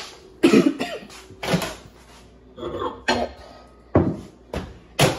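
Kitchenware clattering while tea is made: a mug, spoon and other utensils are knocked and set down in a string of short knocks, about seven in five seconds.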